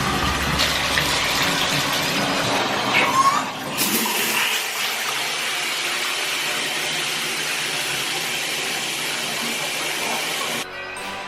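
Shower running: a steady spray of water, briefly louder about three seconds in, that cuts off suddenly near the end.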